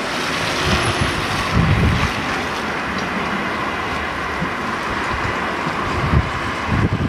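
Wind buffeting the camera microphone in gusts, over a steady rushing background noise, while a South Western Railway class 450 Desiro electric train approaches in the distance.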